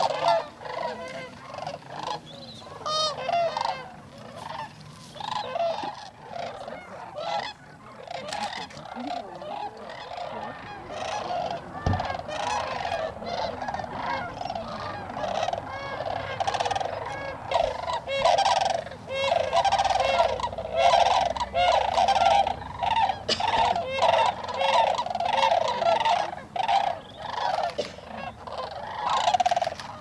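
A large flock of sandhill cranes calling, many rolling, bugling calls overlapping into a continuous chorus, growing louder and denser in the second half.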